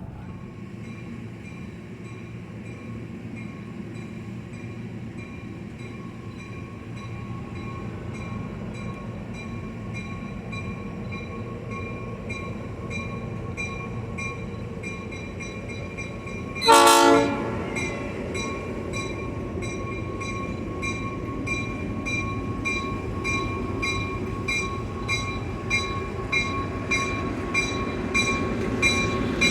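Train rumbling as it pulls away, heard from inside a passenger coach. About 17 s in the locomotive gives one short horn blast. After that the wheels click over the rail joints faster and faster as the train picks up speed.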